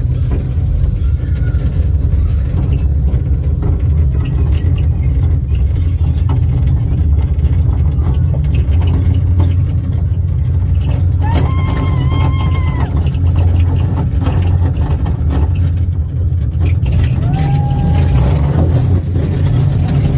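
Steady low motor rumble with no change in pace. About eleven seconds in a long, held high cry rises and falls, and a shorter rising cry comes near the end.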